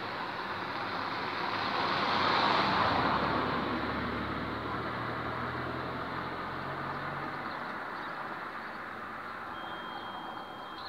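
A motor vehicle passing by: its tyre and engine noise swells to a peak about two and a half seconds in, then fades slowly, with a low engine hum lingering for a few seconds after the peak.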